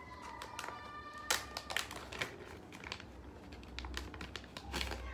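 Product packaging being handled and opened by hand: a run of crinkles and sharp taps, loudest about a second in and again near the end. Faint music plays in the background.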